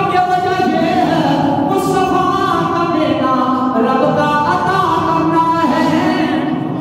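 A man singing unaccompanied in long, held notes that slide and step in pitch: the melodic chanting of verse heard in a sermon.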